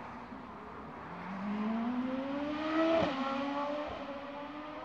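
Race car accelerating up a hillclimb course. Its engine note rises steadily, then drops sharply about three seconds in, where it is loudest, as it shifts up, and it fades afterwards.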